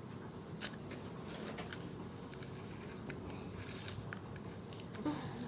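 Faint crinkling and small clicks of a RAM module's plastic packaging being handled and cut open with scissors, with a sharper click about half a second in, a few more near four seconds and another near the end.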